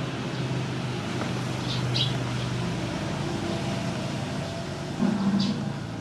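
Steady low hum like a motor or vehicle running, louder for a moment about five seconds in, with a few short high chirps around two seconds in and again near five seconds.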